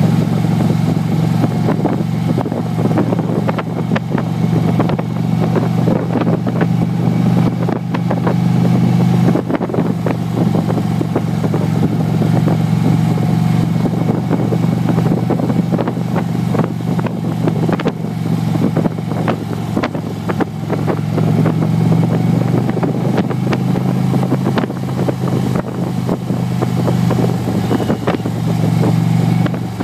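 Harley-Davidson Ultra Classic Limited's V-twin engine running at a steady road speed, heard from the saddle, with wind rushing over the microphone.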